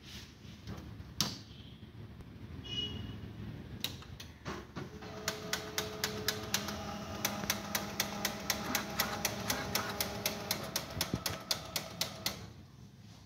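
Canon imageRUNNER 2202N copier running its drive with a steady hum and a rapid, regular clicking, about four clicks a second, which starts about five seconds in and stops with the hum near the end. A few single clicks come before it. This is the abnormal copier noise the video sets out to fix.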